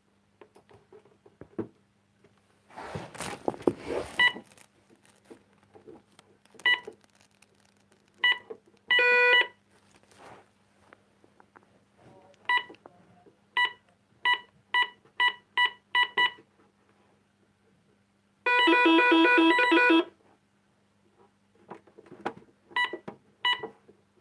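Electronic security-system keypad giving short key-press beeps: scattered single beeps, then a run of about eight at roughly two a second, then one long, louder tone of about a second and a half. Handling rustle about three seconds in.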